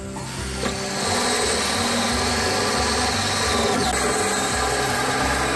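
Power drill running a hole saw through a plastic electricity meter box: a steady high whine of the motor with the noise of the cut, starting just after the beginning and growing louder about a second in.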